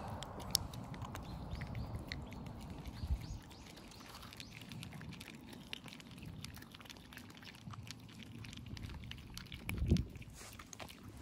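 Stray cats eating, with many small irregular clicks of chewing and bowl contact over a low rumbling background, and one heavier thump near the end.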